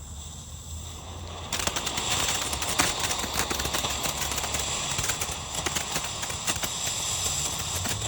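World Class Fireworks short ground fountain catching about a second and a half in, then spraying with a steady hiss full of rapid, irregular crackles.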